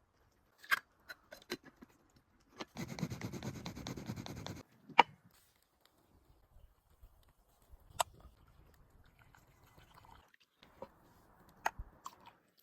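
Coffee-making gear being handled: a few sharp clicks and knocks, and a noisy scraping burst about two seconds long near the start.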